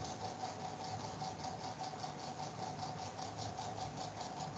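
Steady background noise picked up by the lecturer's computer microphone: a faint constant whine and low hum with a rapid, even ticking about five times a second.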